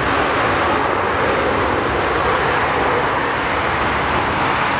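Airbus A380 landing on a wet runway, its jet engines running with a steady, loud rushing noise.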